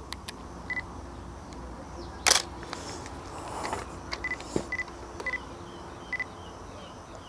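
Camera shutter clicks, the loudest one about two seconds in, with five short high beeps from the camera in between.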